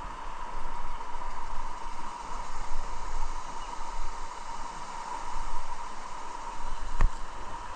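Steady outdoor background noise with a constant hum and uneven low rumble from wind on the microphone, broken by a single sharp knock about seven seconds in.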